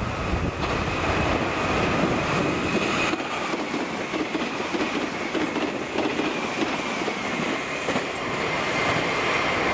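Meitetsu rapid limited express electric train passing through at speed: a steady rush of wheels on rail and cars going by, with a faint high whine throughout.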